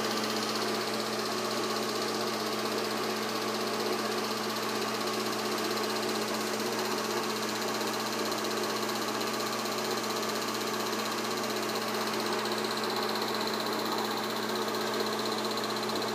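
8mm film projector running steadily: a constant whirring hum with the fast mechanical clatter of the film being pulled through.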